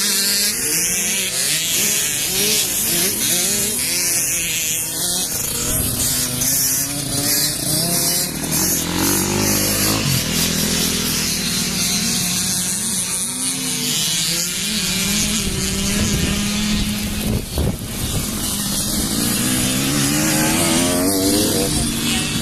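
Several dirt bike engines running and revving together, their pitches rising and falling over one another.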